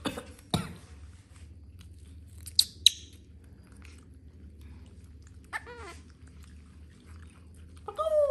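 Baby monkeys' short high squeaks, two in quick succession, and a brief pitched call a few seconds later, with a couple of sharp knocks at the start.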